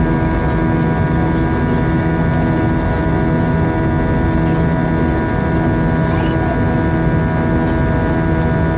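Airbus A320 cabin noise in flight: a steady rush of air and engine noise from its IAE V2500 turbofans, with several steady whining tones over it and a low drone that pulses on and off.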